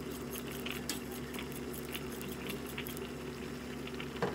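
Squid, tomatoes and onions sizzling in a wok, scattered small pops and crackles over a steady low hum, with a sharper click near the end.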